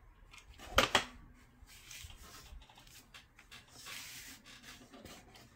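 Two sharp knocks close together about a second in, then light rustling and rubbing of cardstock as a hand presses and smooths a glued paper liner.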